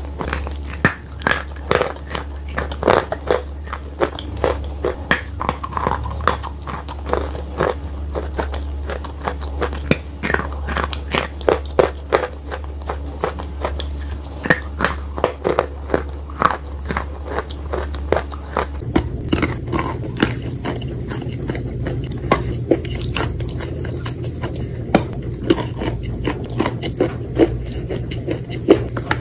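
Close-miked biting and chewing of wet chalk coated in clay paste: many crisp crunches and small crackles over a steady low hum. About two-thirds of the way through, the hum and the character of the crunches change as it switches to bites from a clay-covered chalk slab.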